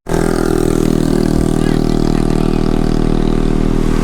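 A vehicle engine idling steadily, running at an even pitch.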